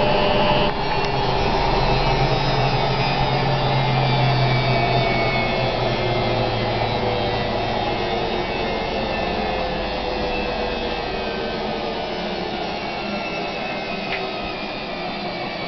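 Washing machine running with a steady mechanical whir and hum that slowly falls in pitch and grows quieter, like a drum spinning down.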